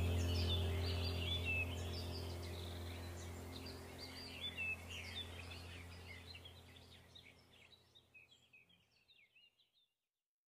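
Birds chirping over a steady low hum, the whole sound fading out gradually to silence near the end.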